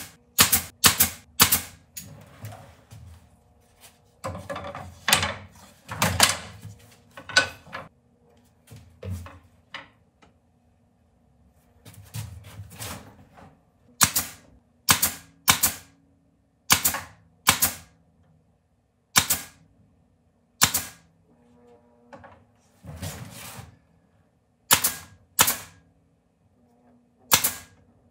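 Pneumatic brad nailer firing into a glued wooden frame: about twenty sharp shots, roughly one a second, some in quick pairs.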